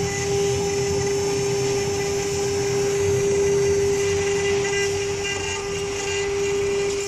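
Two spindles of a small 6015 CNC router running together, engraving a pattern into a wooden board: a steady whine over the noise of the bits cutting.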